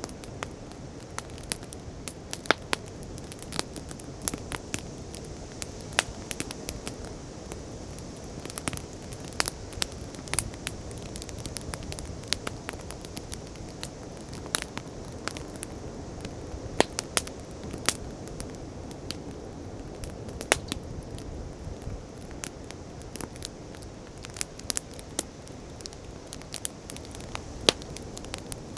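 Wood bonfire crackling, with frequent sharp irregular pops, over a steady rush of sea waves.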